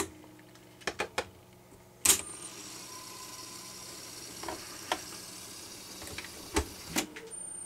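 Piano-key transport controls of an Aristona AR9147A cassette deck (a rebadged Philips N2509) clicking. About two seconds in, a key clunks down and the deck rewinds the cassette with a steady mechanical whir. Two more clunks of the keys come near the end.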